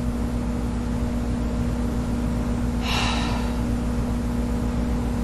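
A steady low electrical hum, with a woman's single short breathy sigh about three seconds in.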